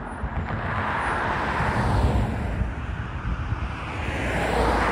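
Road traffic: two vehicles pass close by on the highway, their tyre and engine noise swelling and fading. The first is loudest about two seconds in, the second near the end.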